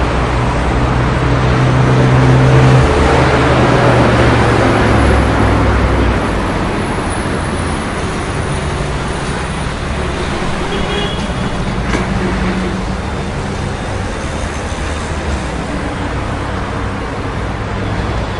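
City street traffic: a steady roar of passing vehicles. A heavy engine hums loudly close by in the first few seconds, then fades into the general traffic noise.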